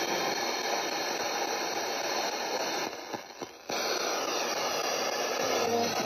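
Radio static hissing steadily, cutting out briefly about three seconds in.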